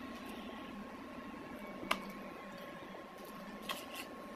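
Metal spoon clinking against a plate while scooping food: one sharp clink about two seconds in, and two lighter ones near the end. Under it runs a steady background hum with a thin high whine.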